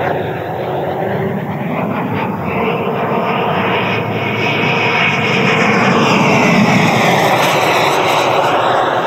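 Electric ducted fan of a TOPRC Odyssey RC jet model (JETFAN-120 PRO) running in flight with a steady rushing whine. It grows louder about six seconds in as the jet passes low, its pitch sliding down as it goes by.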